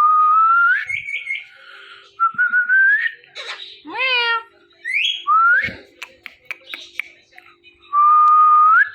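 Indian ringneck parrot whistling: three long whistled notes, each held steady and then rising at the end. A short harmonic call near the middle and a few sharp clicks come between them.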